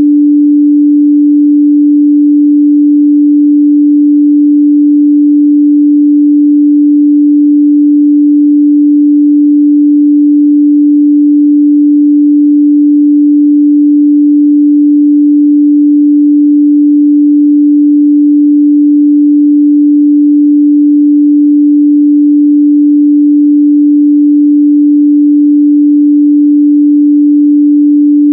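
A pure 293 Hz sine-wave test tone, held steady at one pitch and one loudness.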